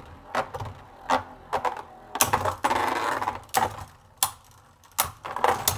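Two Beyblade Burst spinning tops clashing in a plastic stadium. Sharp plastic clacks come at uneven intervals, with a longer rattling scrape of grinding contact about two seconds in.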